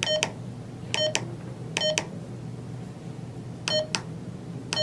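Midland X-Talker walkie-talkie giving short electronic key beeps as its buttons are pressed, four of them about a second or two apart and a fifth at the very end. Each beep comes with a click of the key, as the radio is switched between high and low transmit power.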